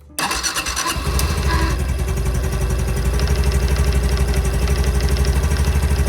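Honda Super Cub C125's single-cylinder engine started cold on the electric starter. It catches within the first second, then idles with a fast, even pulse. This is the cold-start idle in which the owner heard a clattering ('kata-kata') noise, traced to the plates of the starting centrifugal clutch.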